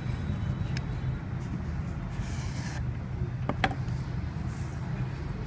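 Cardboard phone box being handled on a counter: a brief rustle of a plastic bag about two seconds in, then a couple of light knocks about three and a half seconds in as the box is stood on the table, over a steady low background rumble.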